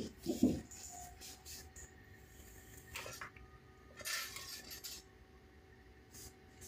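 Handling noise from a plastic RC car chassis being picked up and turned over on a table: two or three dull knocks just after the start, then scattered clicks and scraping of plastic parts, with a faint steady hum underneath.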